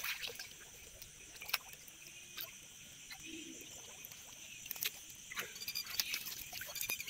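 Steady high chirring of night insects such as crickets, with a few sharp splashes and knocks in shallow water, the last of them near the end as a blade chops at a fish in the water.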